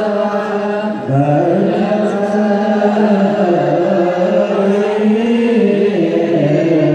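Ethiopian Orthodox clergy chanting the mesbak, the psalm verse of the liturgy: a slow, melodic chant with long held notes that move up and down in pitch.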